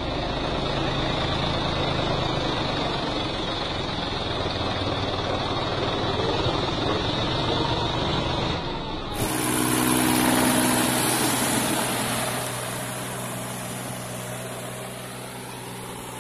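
Mahindra 275 DI TU XP tractor's three-cylinder diesel engine running under load while puddling a flooded paddy field. About nine seconds in the sound cuts abruptly to a steadier engine hum that slowly grows fainter.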